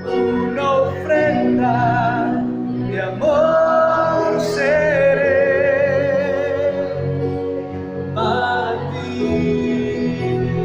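Worship song: voices singing over instrumental accompaniment, with one long held note sung with vibrato about four seconds in.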